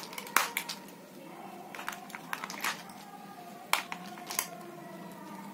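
Sharp plastic clicks and taps as AA batteries are pressed into a plastic toy's battery compartment, a few scattered knocks over a faint steady background.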